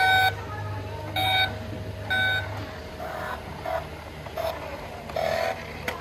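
Electronic beeper on a remote-control toy truck: three evenly spaced beeps about a second apart, like a reversing alarm, then several shorter, rougher electronic sounds.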